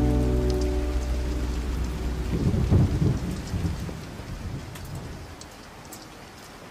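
Steady rain falling, with a deep rumble of thunder about two to three seconds in. The rain then fades down quietly toward the end.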